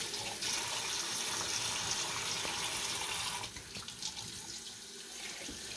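Kitchen tap running into a stainless-steel sink, the stream splashing over hands and a gutted perch as it is rinsed. The rush of water becomes quieter about three and a half seconds in.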